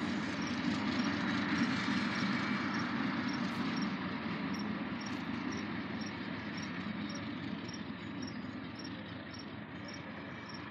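Diesel locomotive engine running as the train pulls away, its rumble steadily fading as it moves off. Crickets chirping, about three chirps a second, come through from about four seconds in.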